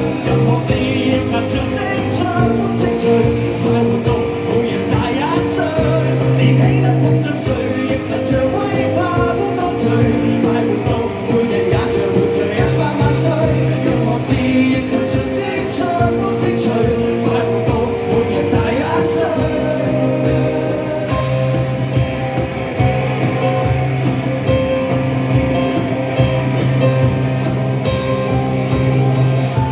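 Live rock band playing a song, with a singer over electric guitar and bass.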